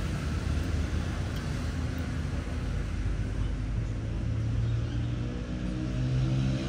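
Steady low engine rumble, with a low pitched hum growing stronger about halfway through.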